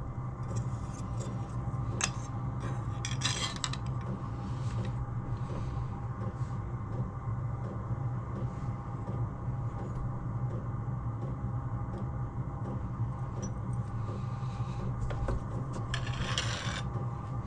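Aluminium sheet being handled and worked for a fold: metal rubbing and scraping with a few light clinks, over a steady low hum. The scrapes come about two seconds in, again a second later, and once more near the end.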